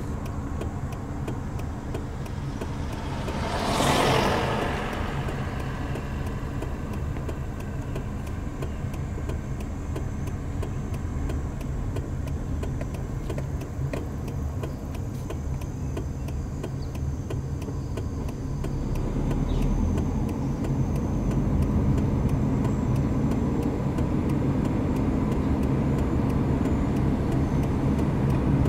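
Steady low rumble of a motor vehicle driving slowly. About four seconds in, another vehicle sweeps past in a brief swell of noise.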